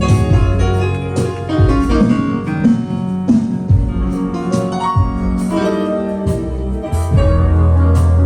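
Instrumental music from a band's sound check: keyboard chords over bass and drums, with a deep held bass note from about seven seconds in.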